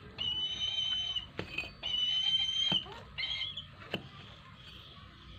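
Brahminy kite calling: three drawn-out, high whistled screams of about a second each, the last one shorter and wavering.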